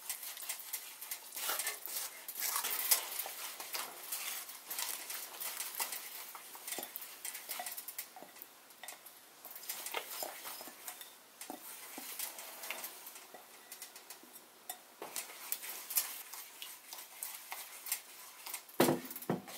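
Black plastic slotted spatula stirring and scraping in a nonstick pan as a besan-and-ghee mixture is worked into sugar syrup: irregular light clicks and scrapes against the pan.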